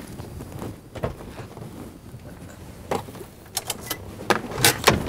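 Handling sounds inside a car: a few soft knocks, then a quick run of sharp clicks and rattles about three to five seconds in, with a low rumble underneath.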